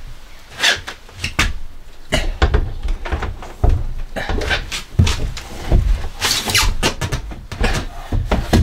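A plywood board knocking and scraping against a van's metal side wall as it is manoeuvred into place, in an irregular run of thumps and rubbing sounds.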